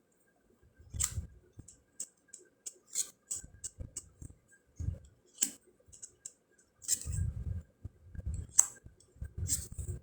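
A deck of round fortune cards being handled and flipped through by hand: irregular sharp clicks and light slaps of card against card, with soft low thuds from the handling.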